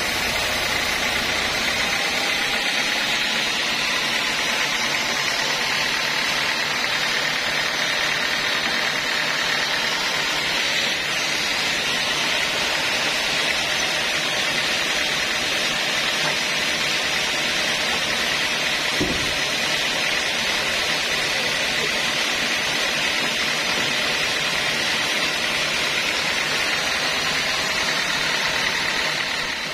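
Homemade band sawmill running steadily, its blade sawing a mahogany log lengthwise into boards. A single low thud comes about two-thirds of the way through.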